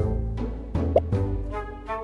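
Background music with a steady beat, with a short cartoon-style plop sound effect about a second in.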